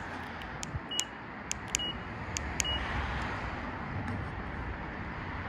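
Three short high beeps about a second apart from a 2011 Acura TSX SportWagon answering presses of its key fob, mixed with sharp clicks.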